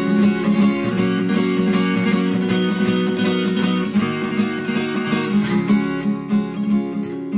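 Instrumental music: acoustic guitar strummed in a steady rhythm, the strumming growing sparser and softer over the last couple of seconds.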